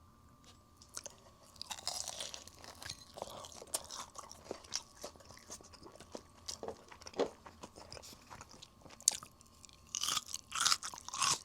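Biting into and chewing crispy fried chicken, the batter crunching in quick sharp crackles, with heavier bites about two seconds in and near the end.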